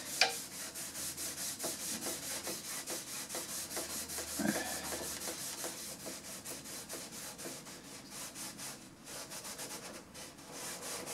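A stain rag rubbing Minwax wood stain into birch plywood, a steady rhythmic swishing of quick back-and-forth strokes. The stain is being worked in as a thin coat.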